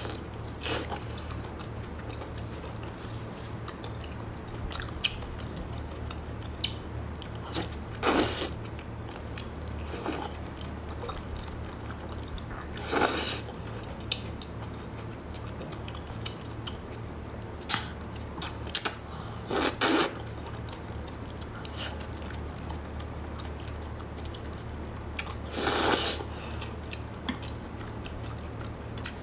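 Close-up chewing and wet mouth sounds of someone eating whole octopus, broken by about five short, louder noisy bursts spread through, over a steady low hum.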